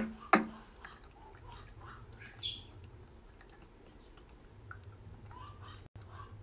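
Young monkeys making faint short chirps and one brief high squeak about two and a half seconds in. Two sharp clicks come right at the start, over a low steady hum.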